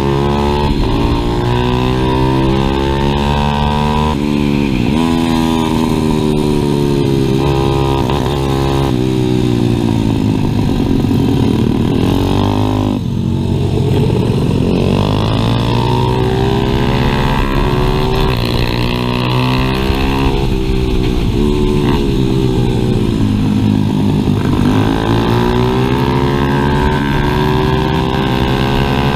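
Onboard sound of a stock 140cc pit bike's single-cylinder four-stroke engine at racing speed, revving up and dropping back again and again through gear changes and corners. The revs fall lowest about thirteen seconds in before climbing again.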